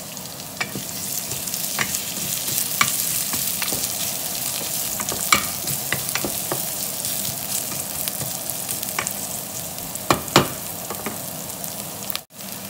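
Chopped onion, garlic and ginger sizzling in hot oil in a stainless steel pot while being sautéed, with a wooden spoon stirring and knocking against the pot in irregular clicks, the loudest two about ten seconds in.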